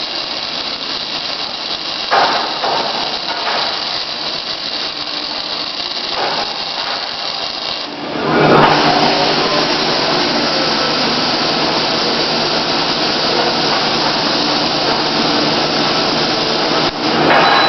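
Robotic MIG welding arc, a continuous hiss that grows louder about eight seconds in.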